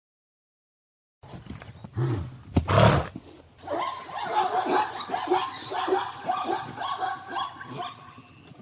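Silence for about a second, then two loud breathy bursts, followed by a long run of quick, repeated barking calls from a zebra that fade near the end.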